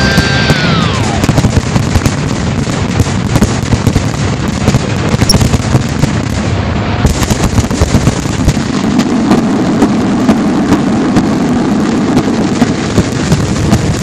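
Fireworks display: a dense, loud barrage of bangs and crackling with a low rumble underneath. In the first second, music ends with a falling, downward-gliding sound.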